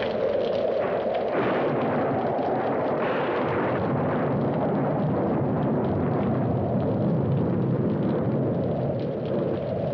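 A loud, steady, dense roaring rumble with no clear tune or voice, like a sound-effect track of fire or explosions.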